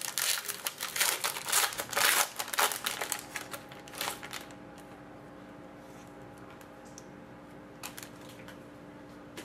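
Foil-lined trading card pack crinkling and tearing as it is ripped open by hand, for about four and a half seconds. After that only a faint steady hum remains, with a couple of small clicks near the end.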